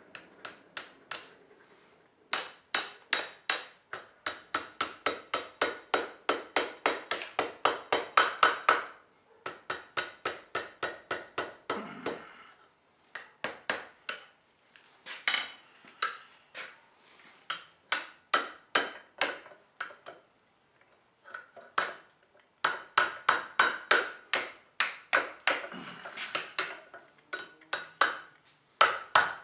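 Blacksmith's hammer striking steel on an anvil, about three blows a second in runs broken by short pauses, with a faint high ring held under the blows, as the end of a hook is hammered into a small scroll.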